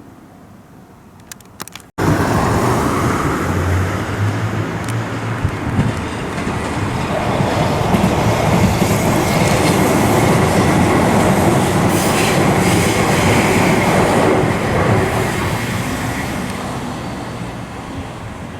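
A train passing close by: a sudden start about two seconds in, growing louder to a peak about two-thirds through, then easing off as it moves away.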